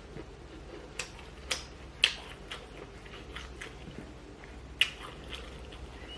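Close-up eating sounds: a person chewing a mouthful of pork Bicol Express and rice, with small wet ticks and several sharp clicks, the loudest about two seconds in and again near five seconds.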